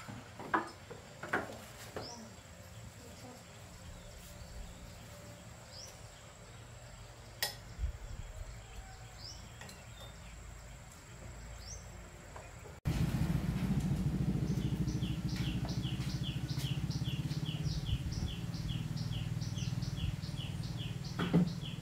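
Rural ambience: a few short rising chirps and light clicks in the first two seconds, then about halfway through the sound jumps louder to a steady low hum with a high animal chirp repeating about three times a second.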